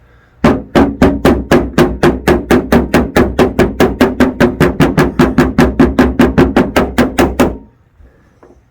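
Rubber mallet tapping rapidly on a car's sheet-metal trunk lid through a protective cover, with a dolly held underneath, working out a dent. The blows are even, about five a second, each with a short ring from the panel, and stop near the end.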